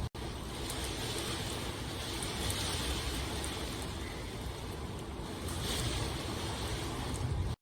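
Steady rain, a continuous hiss that gently swells and eases every couple of seconds. It cuts out for an instant just after the start and again at the end, like a seam in a looped recording.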